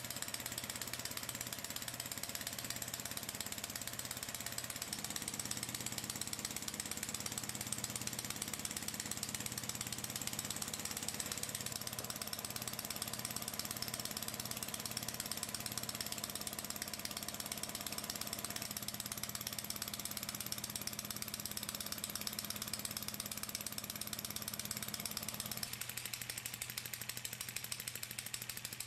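Small Lego Technic pneumatic flat-twin (boxer) engine running fast: a rapid, steady clatter of its plastic pistons, valve and crankshaft with an even hiss of air. About 26 seconds in the sound changes and gets slightly quieter.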